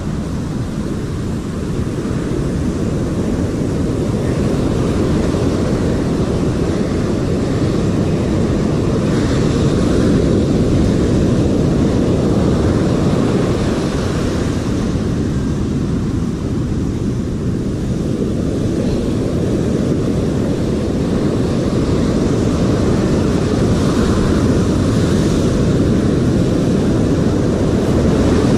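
Steady roar of breaking surf on a sandy beach, mixed with wind buffeting the microphone, with waves washing up the sand now and then.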